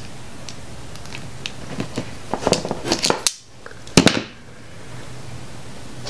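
Hand-held Vise-Grip wire stripper-crimper working a terminal onto a wire: a run of small metal clicks and squeezes, then two sharp snaps about four seconds in as the crimp closes.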